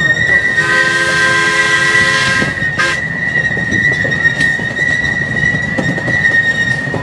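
A miniature steam locomotive's whistle blows for about two seconds near the start, followed by a brief second toot. Under it runs a steady high-pitched squeal, typical of the train's wheels grinding through the curves.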